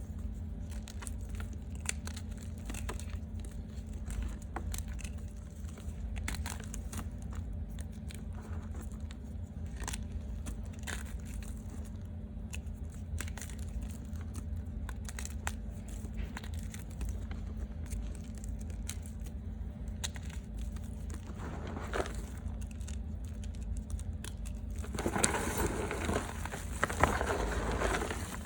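Reformed gym chalk crunching close to the microphone: sparse crisp cracks and clicks, then a denser burst of crumbly crunching near the end. A steady low hum runs underneath.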